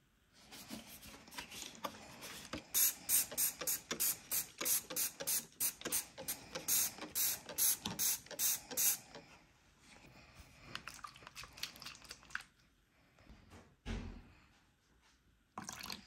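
Hand-washing of a freezer: a run of quick, wet hissing strokes, about three a second for some six seconds, with quieter rubbing before and after and a couple of knocks near the end.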